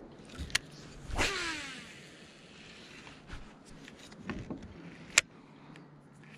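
Fishing reel spool whirring as line pays out on a cast, starting suddenly and falling in pitch over about a second as the spool slows. A sharp click about five seconds in is the loudest sound, with a smaller click just before the cast.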